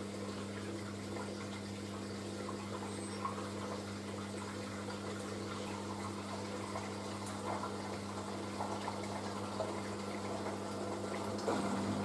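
Panasonic washing machine on its wool cycle, water running in it with a steady low electric hum and small irregular splashes. The hum changes pitch about 11.5 seconds in.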